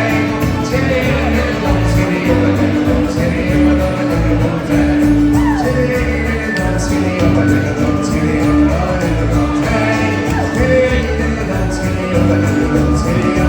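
Irish folk band playing a ballad live, with a steady driving rhythm underneath and a long held note over it.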